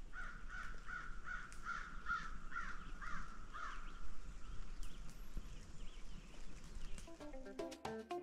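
A bird calling a steady series of short, repeated notes, about two a second, fading out after four or five seconds. Acoustic guitar music starts near the end.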